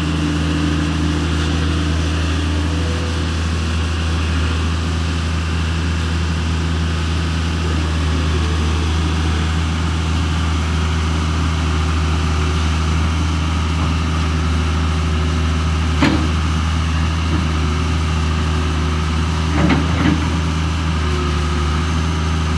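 Vehicle engine idling with a steady low hum. A sharp click sounds about sixteen seconds in, and a few knocks come close together near twenty seconds.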